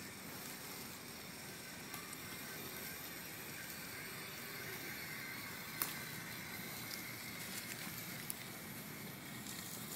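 RC4WD Timberwolf scale rock crawler's electric motor and gears whining steadily as it drives over leaf litter, with one sharp click about six seconds in.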